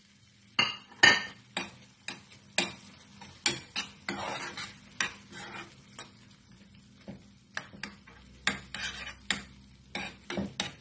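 Metal spoon stirring chopped tomatoes and parsley in a frying pan, with irregular clinks and scrapes as it knocks against the pan.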